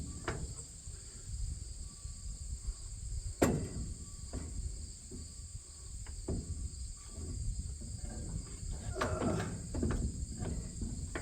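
Metal knocks and clunks as a heavy stalk roll is worked into place in a corn head row unit: one sharp knock about three and a half seconds in and a cluster of clunks near the end. A steady high insect buzz and a fan's low rumble carry on underneath.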